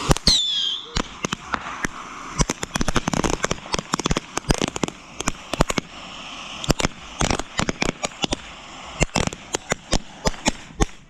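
Consumer fireworks going off close by: a rapid, irregular run of sharp bangs and crackles, several a second. A short falling whistle sounds right at the start.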